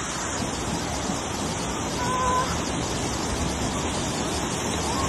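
Muddy mudflow torrent rushing steadily, carrying debris and wrecked vehicles. A brief pitched call sounds about two seconds in.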